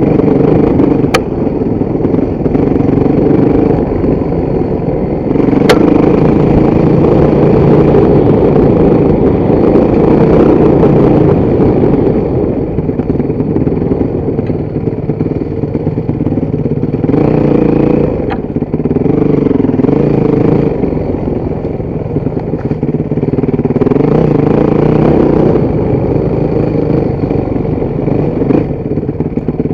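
Motorcycle engine running under way, its revs rising and falling, with three sharp clicks over it.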